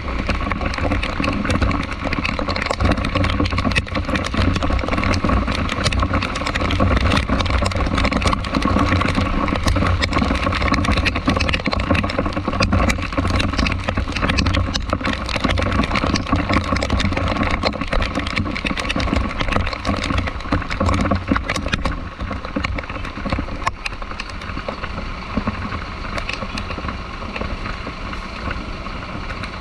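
Vehicle engine running with a steady low rumble under a wash of road noise, easing slightly about two-thirds of the way through.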